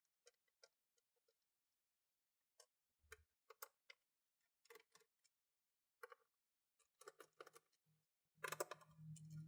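Faint, scattered small clicks and taps of tiny laptop screws being picked out with tweezers and set down. A denser run of clicks, with a low hum, comes in about a second before the end.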